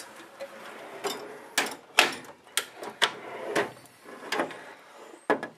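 Metal tool chest drawer and the tools in it being handled: a string of about seven sharp clanks and knocks, spread irregularly over a few seconds.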